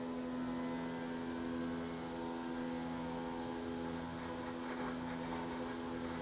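TRAK Toolroom Machining Center's spindle running an end mill through a helical-drilling cut in CNC run, dry without coolant at reduced speed: a steady hum with a thin high tone over it, getting a little rougher a few seconds in.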